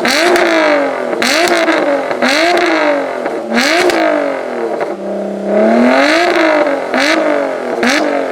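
Lotus Evora 400's supercharged 3.5-litre V6 on its stock exhaust, revved hard in quick repeated blips, the pitch climbing and dropping about once a second. About five seconds in it settles briefly to idle before a longer, higher rev.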